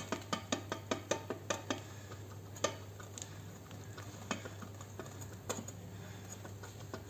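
Vauxhall Zafira front shock absorber, off the car, being worked by hand: its piston rod gives an irregular series of sharp clicks and knocks, several close together at first and one louder knock under three seconds in. The knocking is the sign of play in the rod, the piston moving inside and striking the shock's inner wall.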